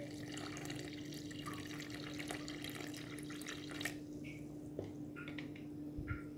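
Slaked-lime water pouring and splashing into a plastic bowl of flour batter for the first two seconds or so, followed by a few light taps and scrapes as a spoon starts stirring the batter. A faint steady hum runs underneath.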